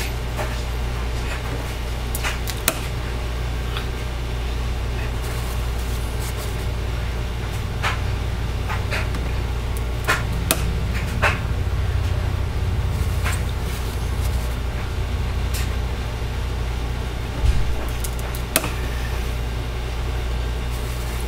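Soap loaf being cut into bars on a wooden wire soap cutter: irregular short knocks and clacks as the loaf is slid along the board and the cutter comes down, over a steady low hum.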